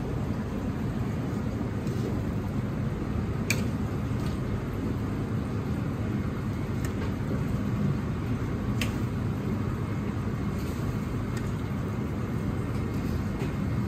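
Steady low roar of a commercial Chinese kitchen's background machinery, with a few faint clinks of utensils.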